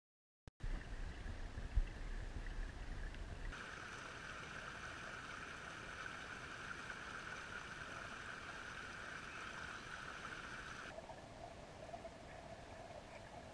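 Shallow creek water trickling and babbling over stones, with a low rumble on the microphone in the first few seconds. The sound shifts abruptly a few seconds in, and near the end it turns lower and duller as the shot goes underwater.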